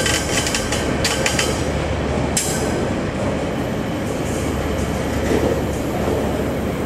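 Container wagons of a long freight train rolling past, a steady rumble of wheels on rail with sharp knocks about one and two and a half seconds in. There is a faint high wheel squeal in the first second or so.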